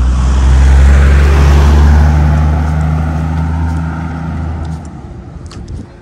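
A motor vehicle's engine running close by: a steady low drone that swells, then fades and cuts off about five seconds in.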